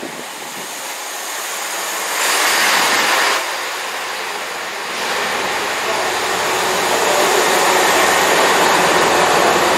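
Class 166 Turbo diesel multiple unit running into a station and slowing to a stop: a steady rush of wheel and running noise, louder for about a second around two seconds in, then settling into the steady hum of its diesel engines.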